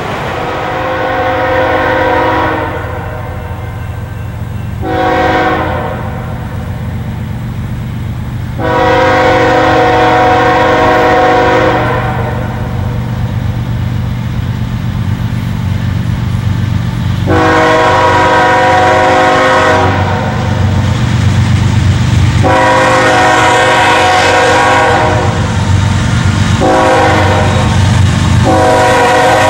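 Diesel freight locomotive horn sounding a series of long blasts with short ones between, the warning signal for a road crossing, over the low rumble of the approaching train's engines. The blasts come closer together and louder in the second half.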